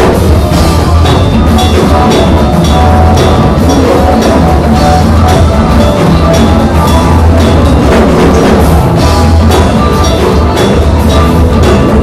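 Loud live band music: a drum kit keeps a steady beat under a strong bass line, with other instruments filling in.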